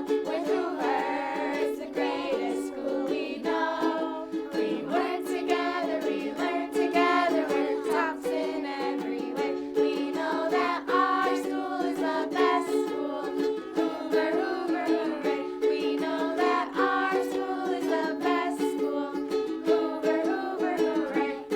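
A small group of children singing a school song together, with strummed string accompaniment keeping a steady beat.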